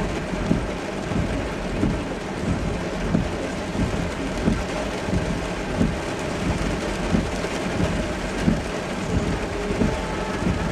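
Heavy rain on a moving car's windshield and roof, heard from inside the cabin: a dense, steady hiss with frequent irregular dull thumps, over road noise.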